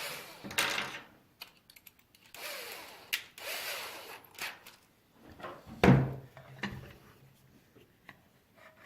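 Clicks and rubbing or scraping of small parts being handled as screws and a bumper are fitted to an RC truck's chassis, with one sharp knock about six seconds in.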